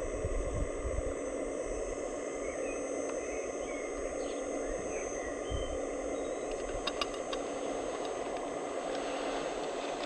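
Hydraulic pump of a radio-controlled Scania hook-lift truck running steadily with a high whine while it tips its loaded container, with a few sharp clicks about seven seconds in.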